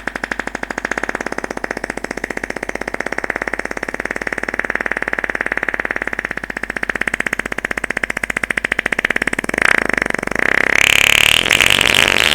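Long fart sound effect: one continuous fluttering, buzzing flatulence that grows louder and higher-pitched about ten seconds in.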